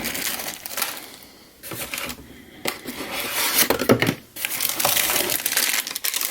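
Plastic packaging crinkling and rustling as it is handled, in several bursts with small knocks.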